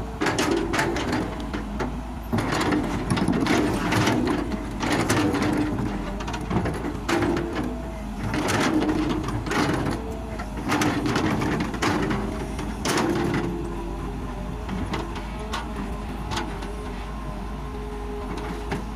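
Kobelco K909 excavator digging rocky soil: the steel bucket scrapes and knocks against stones and earth while the diesel engine and hydraulics work, loudest in repeated pushes over the first two-thirds. After about 14 s the scraping stops and the engine runs on steadily.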